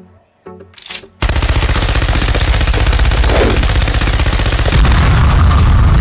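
Machine gun firing one long, unbroken burst that starts about a second in: a rapid, even stream of shots, loud.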